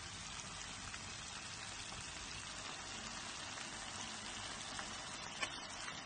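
Cubed potatoes and onions frying in oil in a pan: a steady sizzle, with a brief crackle about five seconds in.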